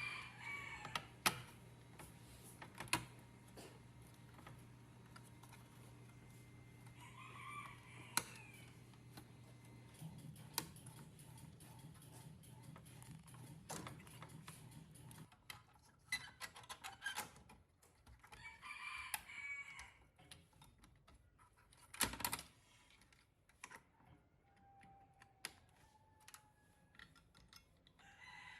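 Chickens clucking a few times, mixed with scattered sharp clicks and taps. A low steady hum runs through the first half and stops about halfway through.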